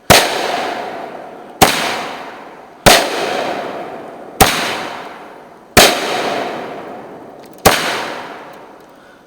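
Consumer firework cake firing its shots: six loud, sharp bangs about one and a half seconds apart, each trailing off in a fading hiss.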